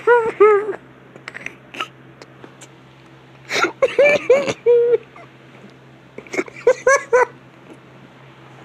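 A man laughing hard in high-pitched, squealing, wheezy bursts: three fits of laughter with short quiet gaps between them, over a steady low hum.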